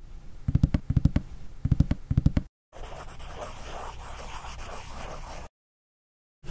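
Four quick clusters of low taps in the first two and a half seconds, then a pencil scribbling on paper for about three seconds before it stops.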